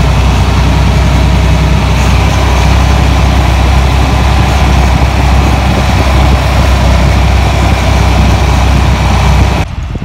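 Farm tractor engine running steadily with a deep, even drone, heard close up from the driver's seat; it stops abruptly near the end.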